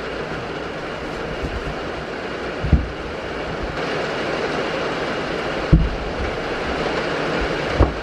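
Rain falling steadily on a goat shed's metal roof. Three brief low thumps stand out, about a third of the way in, past the middle and near the end.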